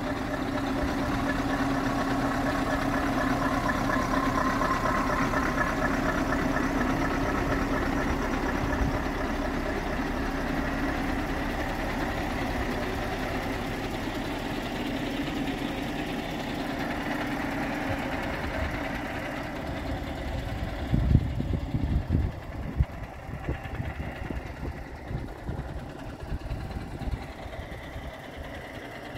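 Scania R520's V8 diesel idling steadily. It grows fainter about two-thirds of the way through, and irregular low thumps come in over it in the last third.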